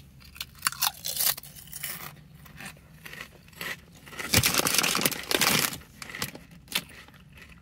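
Foil-lined potato chip bag crinkling and rustling as a hand digs in among the ridged chips, in irregular bouts, loudest and longest about four to six seconds in.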